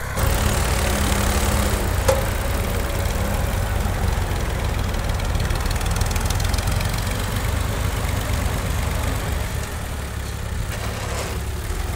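Farm tractor's diesel engine running steadily with a low throb, with one brief knock about two seconds in.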